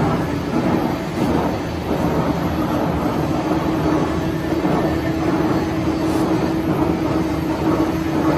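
Schiess 22DE200 vertical boring mill running with its large table turning: a steady mechanical drone, with a humming tone that comes up more strongly after a couple of seconds.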